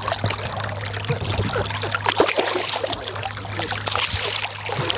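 Water splashing and trickling in irregular spurts as a hooked sheepshead is brought to the net beside a boat, over a steady low hum.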